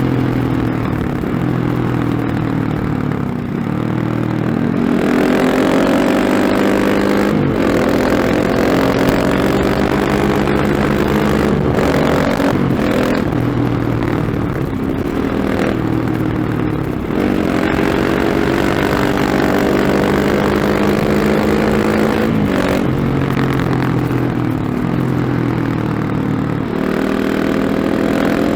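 KTM 690 SMC R's single-cylinder engine, breathing through a Remus slip-on exhaust with its dB-killer fitted, pulling hard and backing off: the note climbs and falls again and again, with brief breaks at the gear changes.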